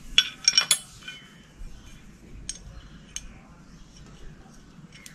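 Small metal parts clinking as they are handled: a brake-light switch screw and nut and a motorcycle brake lever. A quick cluster of sharp, ringing clinks comes in the first second, then a few lighter ticks.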